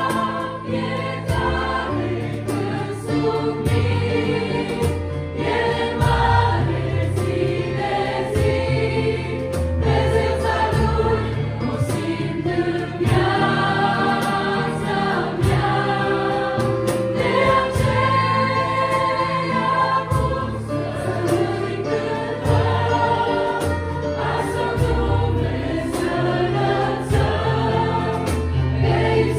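A group sings a Romanian-language worship song, led by two women's voices on microphones, over a cajón beat and a steady bass line.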